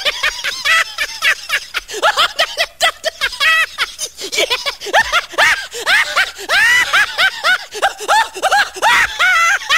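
High-pitched human laughter, going on in quick, rising-and-falling bursts one after another.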